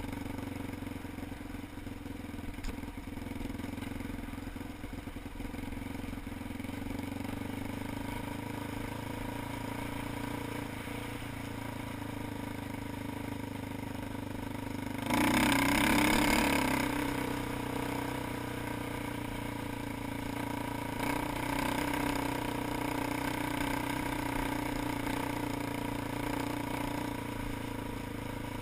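ATV engine running steadily while riding, with a louder rush of noise lasting about two seconds around the middle.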